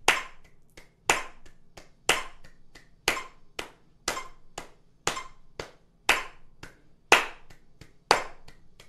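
Hand claps along with a metronome beeping at 60 BPM, a loud accented clap on each beep and quieter claps between. Two claps per beat in the first half, switching to three claps per beat about halfway through.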